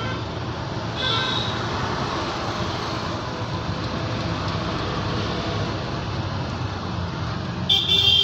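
City road traffic: motorcycles and cars passing with engines running. A vehicle horn sounds near the end.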